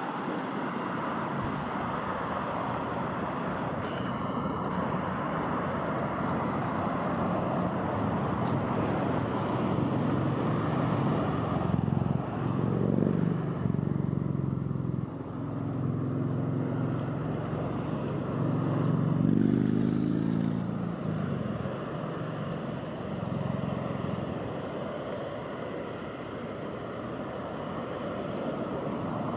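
Engine noise over a steady rush. Pitched engine tones swell and shift in the middle, rising twice before easing off.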